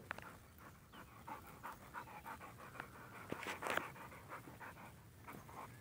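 Dog panting close to the microphone, quick even breaths about three a second, loudest about three and a half seconds in.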